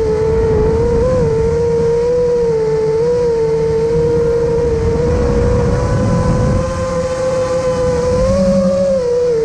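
FPV drone motors and propellers in flight: a steady high whine that wavers slightly in pitch with the throttle, over rushing wind noise.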